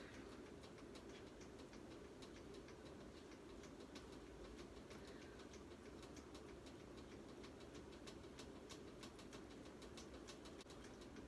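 Near silence: faint room tone with many small, irregular ticks.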